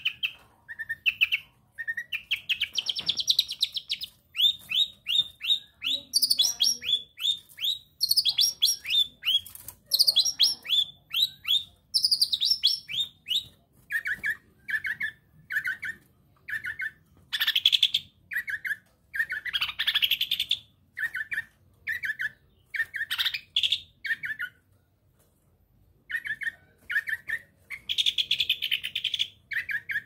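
Young East Javan long-tailed shrike calling non-stop: quick runs of short falling chirps, then repeated short notes broken by harsher chattering bursts, with a brief pause about 25 seconds in. The owner takes this persistent calling for a sign that the bird is in breeding condition.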